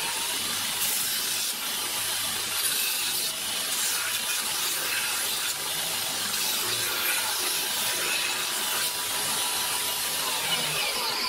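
Belt grinder running steadily, its abrasive belt sanding the edges of a wooden board to blunt them: a continuous scratchy hiss of wood on the belt over the motor's hum.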